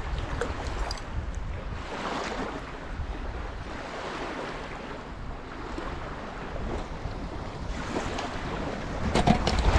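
Small waves washing on the stony Lake Huron shore, with wind rumbling on the microphone. A few sharp clicks come near the end.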